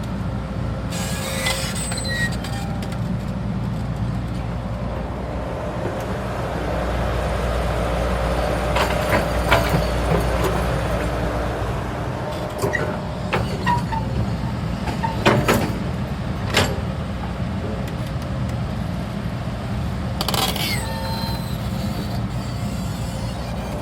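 Heavy diesel machinery running steadily with a low rumble, with scattered sharp metallic clanks and clicks, several close together in the middle and one more near the end.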